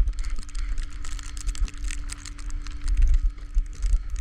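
Uneven low rumble of storm wind on the microphone, with dense crackling ticks over it and a faint steady hum that stops near the end.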